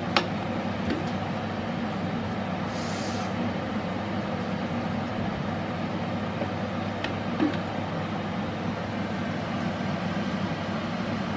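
Steady low rumbling background noise, with a couple of light knocks of a wooden spoon against a metal pot and a brief hiss about three seconds in.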